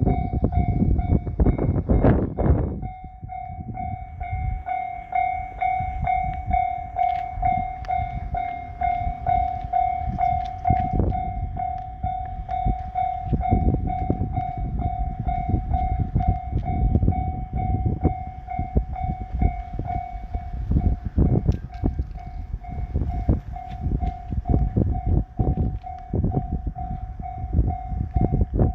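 Japanese railway level crossing alarm ringing its electronic bell tone in an even, repeating pulse, over heavy low rumbling. About two seconds in, a loud burst briefly covers the bell.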